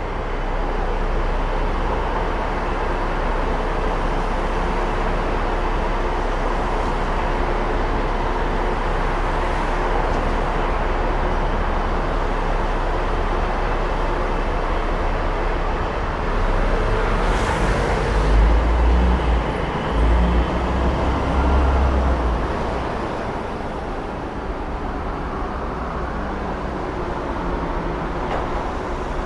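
Busy city street traffic: a steady roar of passing cars and heavier vehicles, with a louder low rumble of a large vehicle passing close about two-thirds of the way through.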